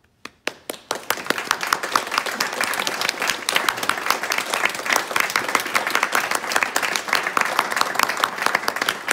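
A small audience applauding, with one pair of hands clapping close by. It starts with a few separate claps and fills into steady applause within about a second.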